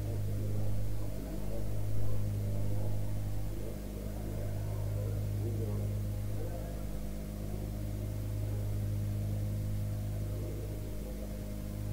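A pause in a recitation, filled by the steady electrical hum and hiss of an old recording. A faint murmur of voices can be heard in the first few seconds.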